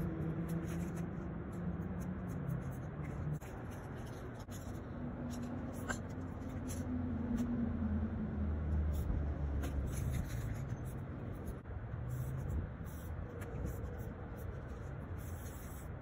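Steady low rumble of city traffic, with engine hum drifting slowly up and down in pitch.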